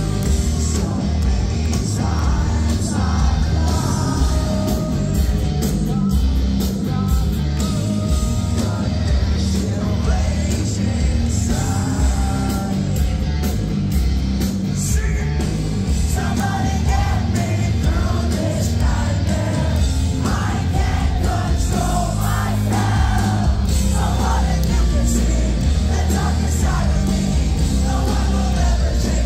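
Hard rock band playing live through a concert PA, heard from the crowd: distorted electric guitar, bass and drums, with a male lead vocal singing over them, more prominent from about halfway in.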